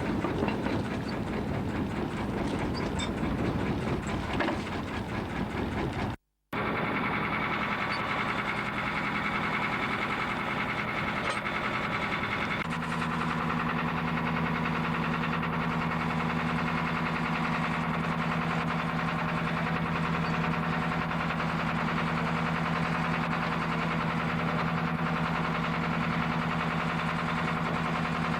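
Small fishing boat's engine running steadily under way. The first part is rougher and rattling; after an abrupt cut about six seconds in it settles into an even hum, which shifts to a lower, steadier tone a few seconds later.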